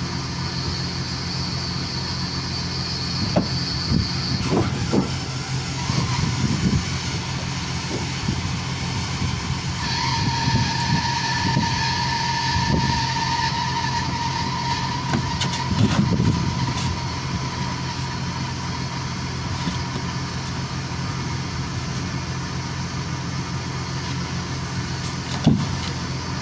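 A fishing boat's engine running steadily with a low drone, a thin whine coming and going above it. Scattered thuds and knocks of the net and gear being handled on deck, the sharpest near the end.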